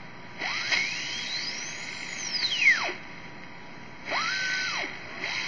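TenTec Model 1054 regenerative shortwave receiver whistling through its speaker as the dial is turned: a heterodyne whistle glides up high and back down, then a shorter steady whistle about four seconds in, over a bed of band hiss. The whistles are the detector oscillating past the regeneration point and beating against a station's carrier.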